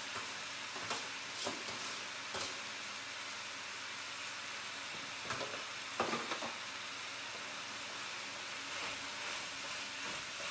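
Cauliflower rice frying in a pan with a steady sizzle, with a spoon knocking and scraping against the pan. A louder clatter comes about six seconds in as an aluminium foil tray is set down.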